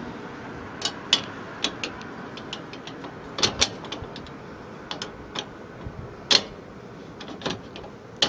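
Irregular light clicks and taps of windshield mounting hardware being handled and fitted by hand at the frame bracket, about a dozen in all, the sharpest about two-thirds of the way through.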